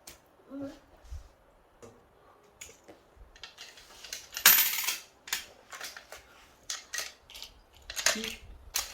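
Clicks and clatter of small hard objects, plastic toy pieces and candies, being handled on toy plates and cups, with one louder rattle about four and a half seconds in.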